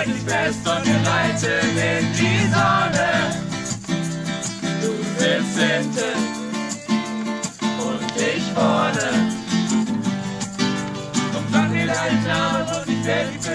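Music playing: a song with a steady, fast beat and a singing voice over it.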